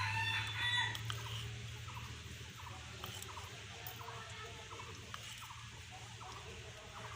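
A rooster crowing, ending about a second in, followed by short repeated clucks of chickens over a steady low hum.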